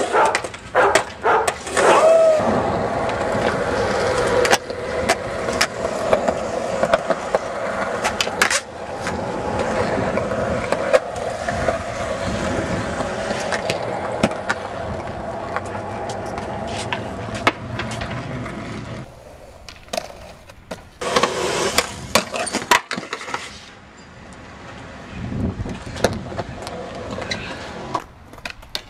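Skateboard wheels rolling on a concrete skatepark surface, broken by sharp clacks and knocks of the board on the concrete and ledges during tricks.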